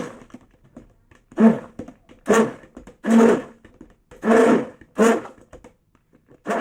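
Electric stick blender run in short pulses, about one burst a second, each under half a second, blending the warm leave-in conditioner.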